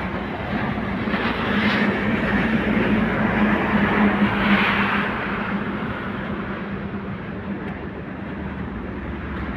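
A heavy engine running with a steady hum that swells about halfway through and then eases, over the steady hiss of heavy rain.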